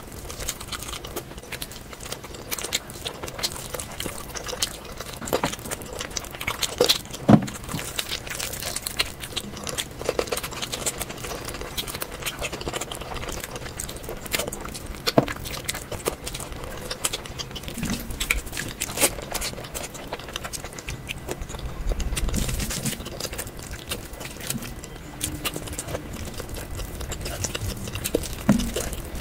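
A person eating close to the microphone, ASMR-style: biting and chewing, with many small sharp clicks and crackles throughout.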